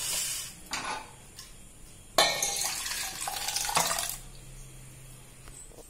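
Boiled barley grains and their cooking water poured from a pressure cooker pan into a stainless steel bowl: a splashing pour that starts suddenly about two seconds in and lasts about two seconds. The metal pans clatter as they are handled in the first second.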